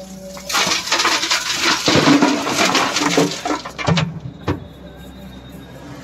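Rocks and earth dumped from an excavator bucket crash and clatter into a steel tractor trailer: a dense run of impacts for about three seconds, then one last sharp knock.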